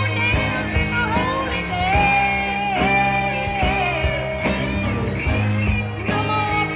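Psychedelic rock music: full band with electric guitar, bass and drums playing, with a sustained, bending melodic line over a steady beat.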